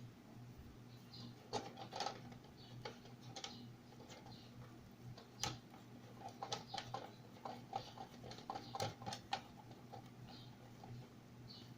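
Scattered small clicks and taps of hands handling speaker wire and plugging it into an amplifier's speaker terminals, at irregular intervals, over a faint steady low hum.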